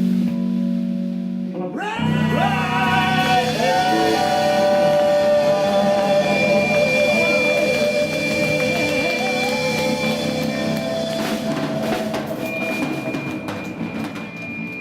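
Live blues-rock band playing: a lead line of bent, long-held notes over drums and a steady lower accompaniment.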